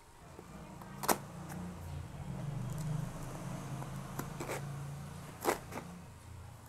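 Packing tape on a cardboard parcel being slit with a pocket knife while the box is handled: a low, steady hum with a few sharp clicks and taps, the loudest about a second in.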